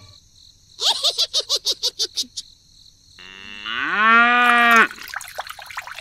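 A quick run of about ten short chirping pulses lasting a second and a half. After a pause, a cow moos once, its pitch rising and then held for about a second before it cuts off.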